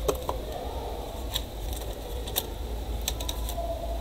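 Scattered light clicks and knocks of a laptop motherboard and its plastic chassis parts being handled, a few sharp ones about a second apart, over a steady low hum.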